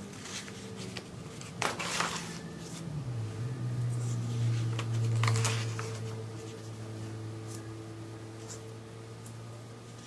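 Paper pages of a ring binder being turned and handled, with rustling page flips about two seconds in and again around five seconds in. A steady low hum runs underneath and drops in pitch about three seconds in.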